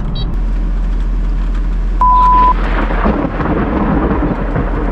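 Close thunder cracks about two seconds in and rumbles on, over rain and the mulcher's engine idling low. A short steady beep sounds at the moment of the crack.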